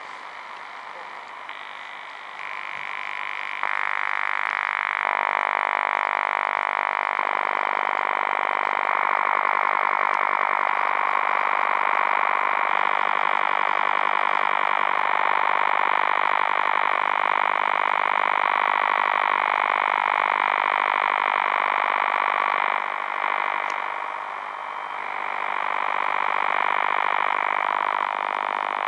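Over-the-horizon radar signal heard through a shortwave radio in AM mode on the 16-metre broadcast band: a loud, steady pulsed buzz, as the dial is tuned slowly across it. It grows loud about three or four seconds in and dips briefly near the end.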